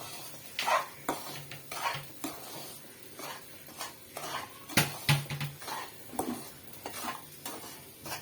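A spoon stirring and scraping rava and sugar around in a pan, in uneven strokes, with a couple of sharp clanks of the spoon against the pan about five seconds in.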